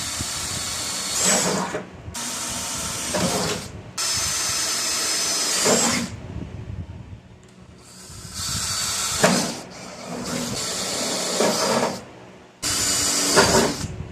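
Power drill with an 11/64-inch bit drilling holes, started and stopped in about six runs of a second or two each, with a longer pause between the third and fourth.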